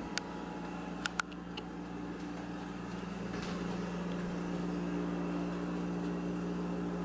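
Steady mechanical hum, as of a running household machine, with a few light clicks in the first two seconds.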